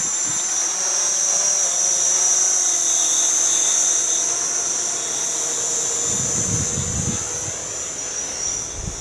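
Quadcopter's electric motors and propellers whining steadily, the pitch wavering up and down as the motors adjust. Low rumbling gusts of wind on the microphone about six seconds in.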